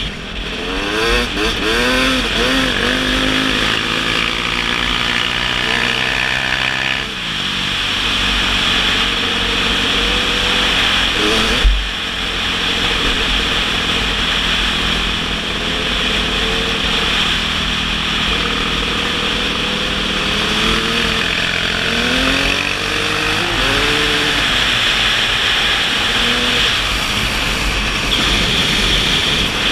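Yamaha YZ250 dirt bike engine heard from the rider's helmet, revving up and easing off again and again as it rides, under steady wind rush on the microphone. A single sharp thump about twelve seconds in is the loudest moment.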